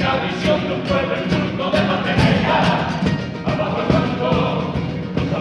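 Carnival comparsa choir singing its closing cuarteta in chorus, with guitar and drum accompaniment.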